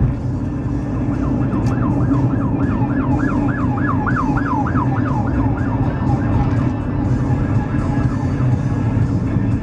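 Police car siren in a fast yelp, about three rising-and-falling wails a second, swelling louder and then fading away, heard from inside a moving car over steady road noise.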